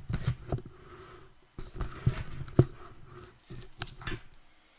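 Trading card packs and cards being handled up close: rustling and scraping, with a run of irregular knocks and taps. The sharpest knock comes about two and a half seconds in.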